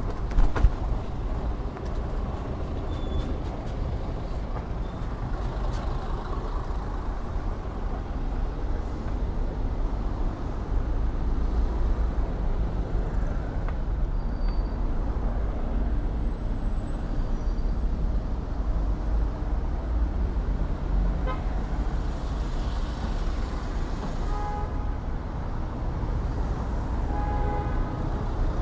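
Wind rumbling on a bicycle-mounted microphone, with the noise of slow-moving road traffic around it. There is a sharp knock about half a second in, and a vehicle horn sounds briefly a couple of times near the end.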